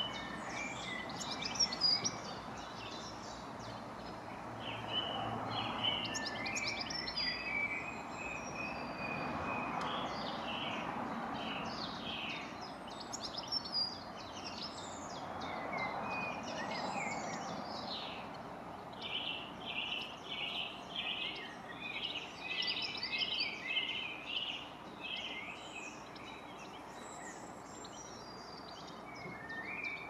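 European goldfinch singing: a long run of short, high chirping notes that breaks into a fast stretch of rapidly repeated notes about two-thirds of the way through, over a steady background rush of distant noise.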